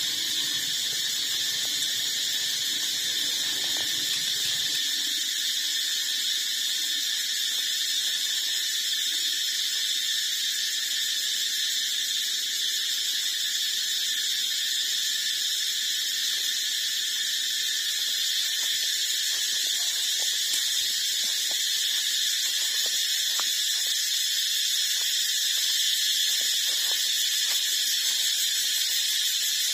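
A steady, high-pitched whine made of several tones sounding together, with faint clicks over it in the second half.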